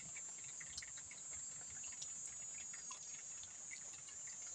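Insects buzzing in one steady high-pitched tone, with scattered faint ticks.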